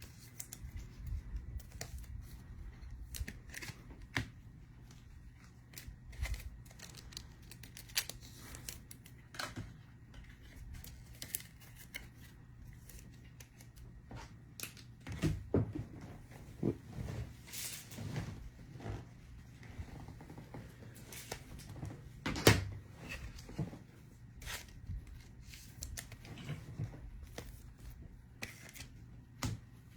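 Trading cards and pack wrappers being handled: scattered light clicks, rustles and slides of card stock and wrapper, with one sharper knock about 22 seconds in, over a faint low hum.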